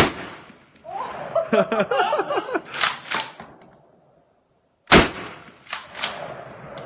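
Two loud gunshots, one at the very start and another about five seconds in, each with a short ringing tail. Between them are voices and laughter.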